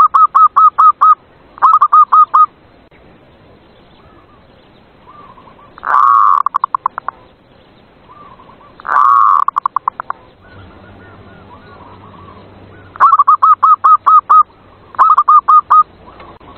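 Zebra dove (perkutut) cooing in bouts of rapid staccato coo notes, about six notes a second. Six bouts come with pauses between them, and two of the middle bouts open on a longer drawn-out note. A faint low hum joins in the second half.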